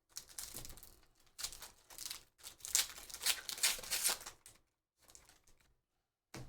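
Foil wrapper of a trading-card pack being torn open and crinkled, in several crackling bursts over about four seconds.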